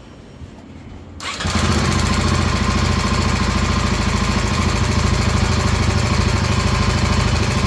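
Royal Enfield Himalayan 450's single-cylinder engine running steadily with an even firing beat, heard suddenly from about a second in; it sounds like a tractor, which the owner counts as a sound issue, as each of his identical bikes sounds different.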